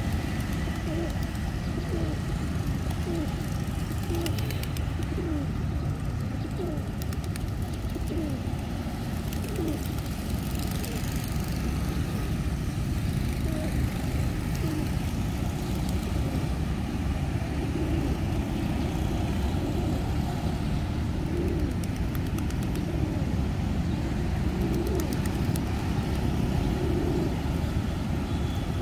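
Pigeons cooing in short repeated low calls, over a steady low rumble.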